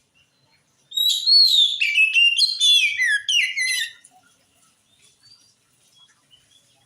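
Oriental magpie-robin (kacer) singing one loud phrase of quick, varied whistled notes that slide up and down, starting about a second in and lasting about three seconds, followed by a few faint notes.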